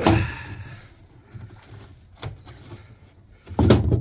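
Plastic boat deck hatch being opened by hand. A short scraping rub at the start, a few light clicks, then one loud clunk near the end as the lid is freed and lifted.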